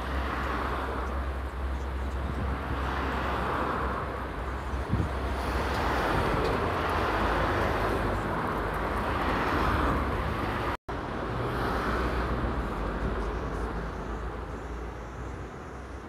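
Steady road and traffic noise from a car driving along a city avenue, with a low rumble underneath and slow swelling whooshes every few seconds. It cuts out for an instant about eleven seconds in.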